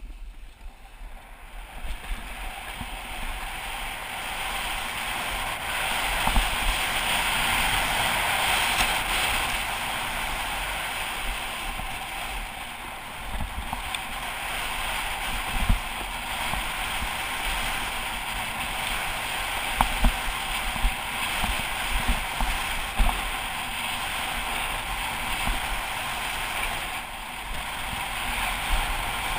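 Skis sliding and carving over snow at speed, a steady rushing hiss, with wind buffeting the microphone and a few sharp knocks.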